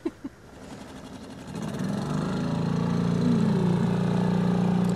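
Small outboard motor running on a boat underway, a steady engine hum that grows louder about a second and a half in.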